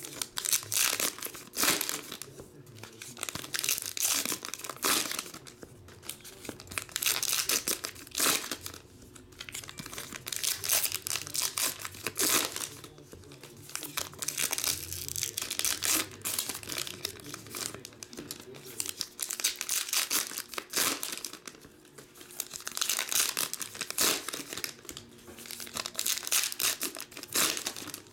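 Foil-lined baseball card pack wrappers being torn open and crinkled by hand, again and again in spells of a second or two with short pauses between.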